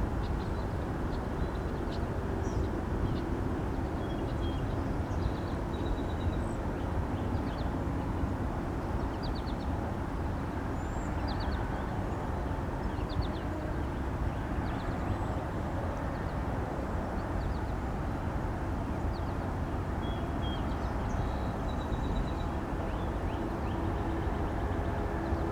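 Steady outdoor rushing noise, heaviest in the low range, with faint small bird chirps and a few quick high trills scattered throughout.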